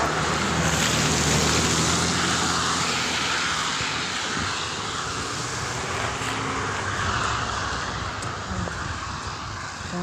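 An engine running with a steady hiss and a low hum, slowly fading.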